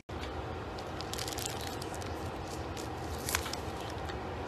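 Quiet room noise with a low hum and faint scattered crackles and rustles, and one sharper click about three seconds in.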